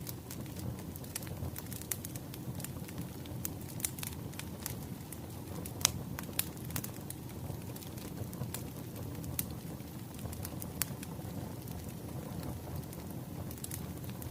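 Wood fire crackling: irregular sharp pops and snaps over a steady low rumble of burning logs.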